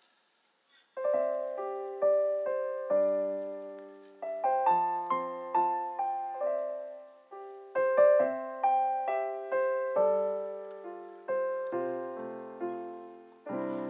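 Piano accompaniment plays a gentle instrumental interlude: single notes and chords, each struck and left to fade, after a second of silence at the start. Just before the end the bowed haegeum strings come back in.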